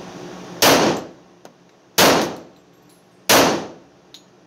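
Three shots from an FXH-45 Moxie .45 ACP pistol, fired about a second and a half apart, each with a short echo.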